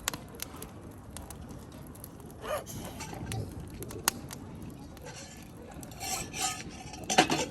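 Metal parts clinking and scraping: a few separate sharp clinks and short rattles, the loudest cluster near the end.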